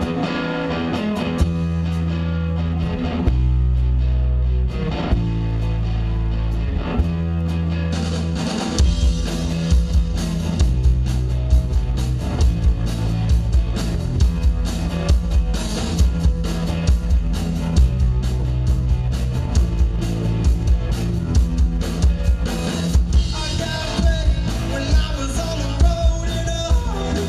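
Live rock band playing: electric guitar and bass ring out long held chords, then the drums come in with a steady beat about nine seconds in.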